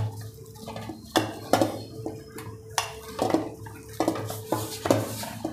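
A stainless steel bowl knocking and scraping against the counter as dough is kneaded in it by hand, with irregular clunks about every half second.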